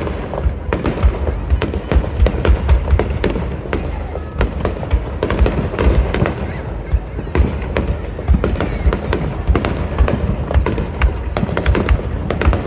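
Aerial fireworks bursting in quick succession: a dense, continuous run of booms and sharp crackles, several a second.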